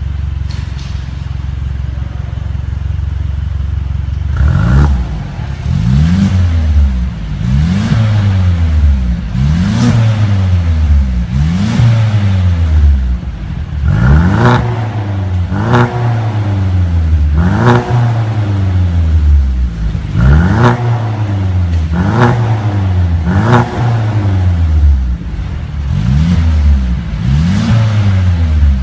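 Mercedes-Benz C300 W205's turbocharged four-cylinder engine through an ARMYTRIX valvetronic exhaust, idling and then revved repeatedly in short blips, each a quick rise in pitch falling back to idle, about a dozen in a row.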